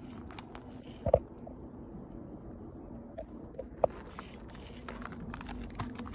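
Scattered light clicks and crunching of handling and footsteps, with two sharper knocks about a second in and near four seconds in.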